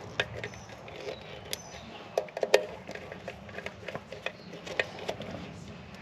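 Phillips screwdriver driving the mounting screw of a throttle position sensor on a throttle body: small irregular clicks and taps of metal on metal, with a cluster of sharper clicks about two and a half seconds in.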